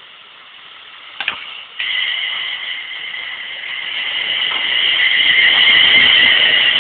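Class 350 electric multiple unit running in along the platform and passing close, its rumble growing louder as it nears. A steady, high two-tone whine starts suddenly about two seconds in and swells with the approach.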